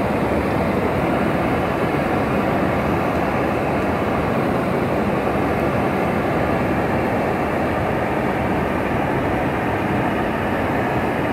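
Heavy rain falling on a car's windshield and roof, heard from inside the cabin as a steady, dense rush.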